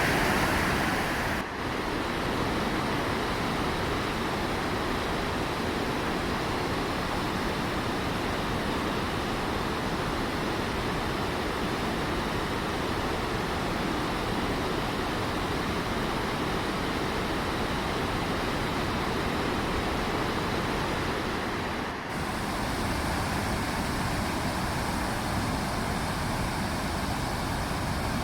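Waterfall roaring steadily, a constant rush of falling water, dipping briefly twice.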